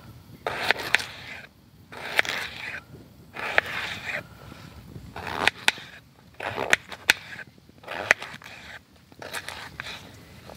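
Knife cutting raw potato into cubes on a chopping board: about seven short bursts of crunching cuts, a second or so apart, most ending in a sharp knock of the blade on the board.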